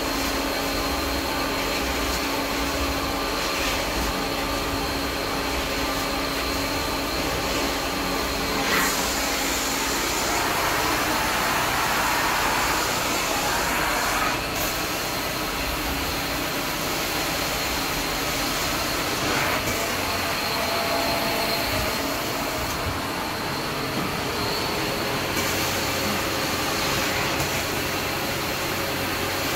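Carpet extraction machine running with its vacuum suction on, a steady mechanical whine and rush. There is a brief knock about nine seconds in, and a louder hiss for a few seconds after it.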